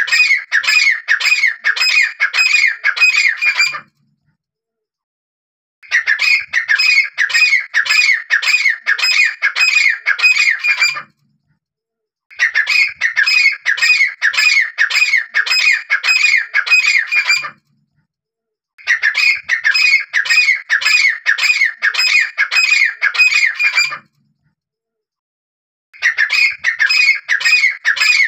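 Grey francolin calling: loud, harsh notes repeated about two or three times a second in bouts of roughly five seconds, broken by short silent gaps, the pattern of a looped lure call used for hunting francolins.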